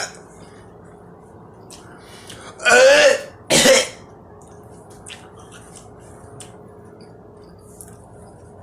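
A man coughing and clearing his throat in two harsh bursts about three seconds in, the first with a strained vocal sound, his mouth burning from a raw habanero pepper he has just eaten.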